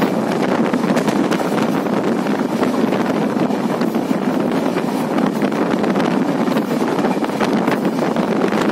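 Steady rushing wind on the microphone aboard a moving train, mixed with the train's running noise on the rails.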